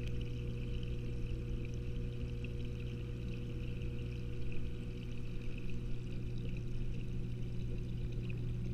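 Steady hum of a saltwater aquarium's pump and circulating water, heard underwater through the camera's housing, with a light crackle over it.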